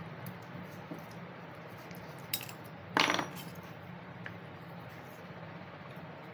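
Small metal parts of a dismantled dry cell clinking: a light click, then a louder short metallic clatter about three seconds in, over a steady low hum.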